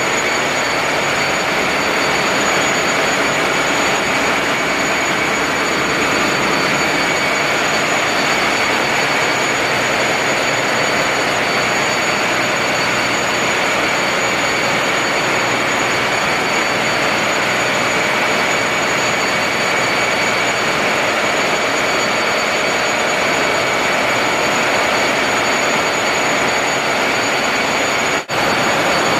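Ship's engine-room machinery running: a loud, steady din with a steady high whine over it. It cuts out for an instant about a second before the end.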